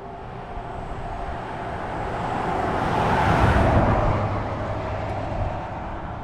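A road vehicle driving past: tyre and engine noise swelling to a peak about three to four seconds in, then fading. It cuts off suddenly at the end.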